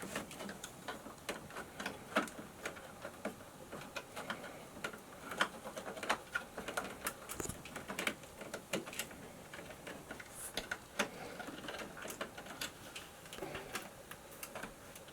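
Irregular light clicks and taps of stiff electrical cable and wires being handled and worked into a junction box.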